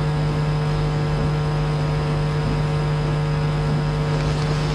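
Steady electrical hum with hiss: a buzz made of many even tones, strongest low down, that does not change.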